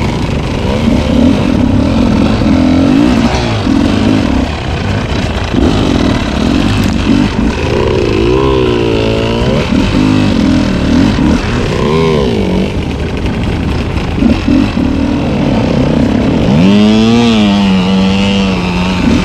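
Two-stroke off-road dirt bike engine under hard riding, revving up and dropping back again and again as the throttle is worked; near the end it climbs once more and holds a steadier note.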